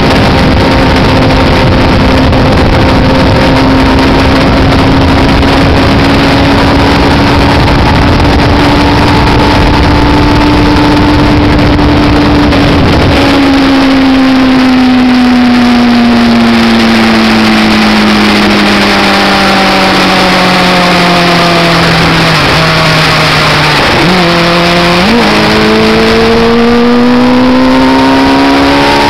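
MV Agusta motorcycle engine running at high speed, with heavy wind noise on the microphone. About halfway the wind eases and the engine note falls slowly as the rider rolls off. Near the end the pitch dips and jumps quickly, then rises steadily as the bike accelerates again.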